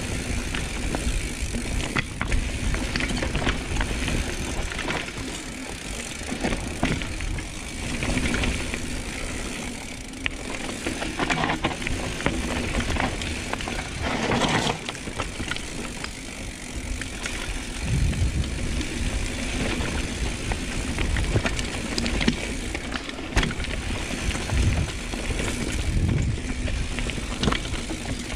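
Mountain bike riding down a rough downhill trail: tyres rolling over dirt and roots with a continuous rumble, and frequent sharp knocks and rattles from the bike over the bumps.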